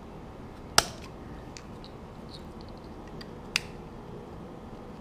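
Utility knife cutting through small plastic tabs on a throttle-switch part, giving two sharp clicks about three seconds apart as the plastic snaps through, the first the louder, with a few faint ticks between.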